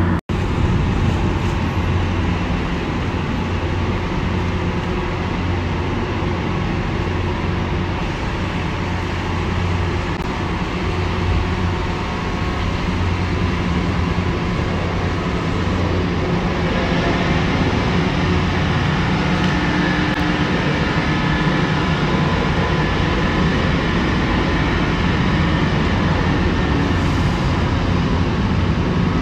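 Marine diesel engines of a container ship and its tugboat running steadily, a constant low droning hum with a steady pitch. A higher hiss rises a little about halfway through.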